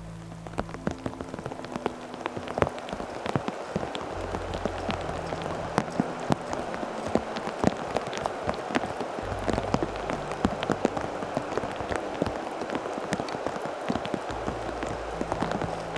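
Steady rain with a hiss, and heavy drops landing close by as sharp, irregular ticks throughout.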